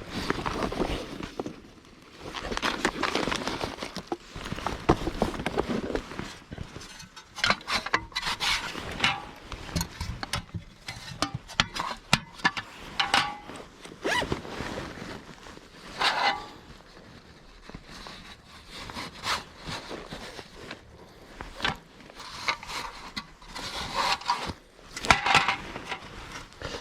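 Irregular rubbing, scraping and light knocks of objects being handled, with no steady rhythm.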